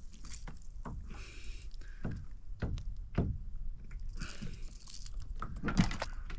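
Scattered knocks, taps and light splashing while a small bream is being unhooked in a kayak.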